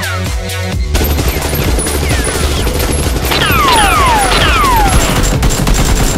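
Rapid automatic gunfire sound effects laid over electronic background music, with a run of falling laser-like zaps from about three seconds in.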